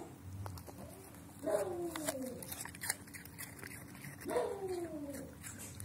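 Labrador chewing a piece of apple, with short crunching clicks, and two brief whines falling in pitch, about three seconds apart.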